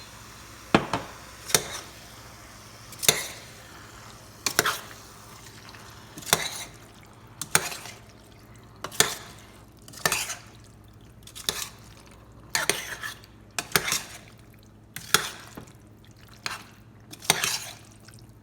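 A cooking utensil stirring pasta and vegetables in a pan, scraping and knocking against the pan about once every second or so, over a faint steady sizzle.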